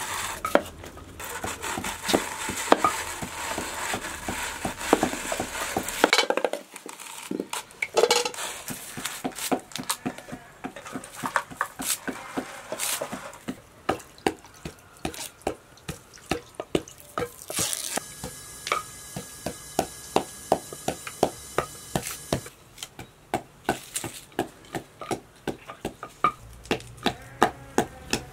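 Hand food preparation on wood: a knife cutting potatoes on a wooden chopping board, then a long run of sharp, regular knocks, about two or three a second, from kitchen work such as chopping and pounding.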